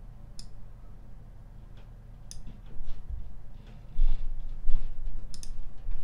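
Computer mouse clicking a handful of times, single sharp clicks with a quick double click near the end. Dull low thumps in the second half, the loudest sounds here.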